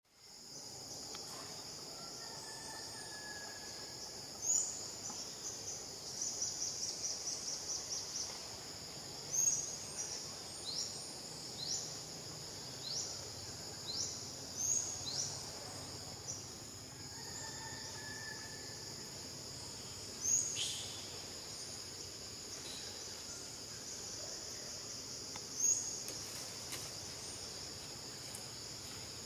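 Steady high-pitched insect chorus, like crickets or cicadas, with short sharp chirps standing out over it every second or two and a quick run of rapid pulses a few seconds in.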